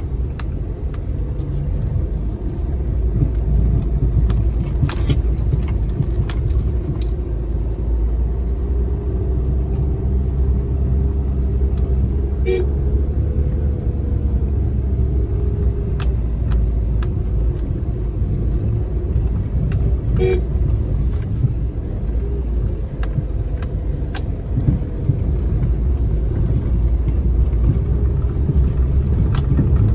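A car on a rough dirt track, heard from inside the cabin: a steady low rumble from the engine and the tyres on the rutted road. Occasional sharp knocks and rattles come through as it rides over bumps.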